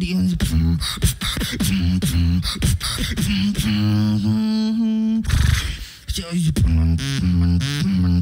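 Beatboxing into a handheld microphone: a fast rhythm of kick- and snare-like clicks over a pitched vocal bass line. About three and a half seconds in, a single hummed note is held for over a second. The beat cuts out briefly about six seconds in, then starts again.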